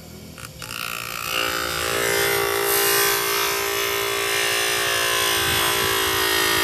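Bench electric motor's spinning abrasive disc grinding a red plastic tail-light lens: a steady buzzing whine with harsh grinding hiss, building up over the first second and a half.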